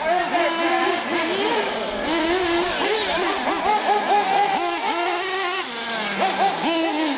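Several 1/8-scale nitro R/C cars on track, their small two-stroke glow engines screaming up in pitch and dropping again over and over as they accelerate down the straights and back off into the turns, several engines overlapping.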